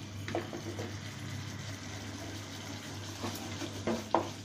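Thick curry gravy simmering in a frying pan on a gas stove, a steady low bubbling hiss. A few light clicks and taps come in, the last ones near the end.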